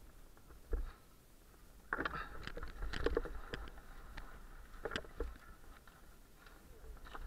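Mountain bike on a dirt downhill trail: the bike rattles and clatters over bumps with sharp knocks, one just under a second in and a louder, busier stretch in the middle.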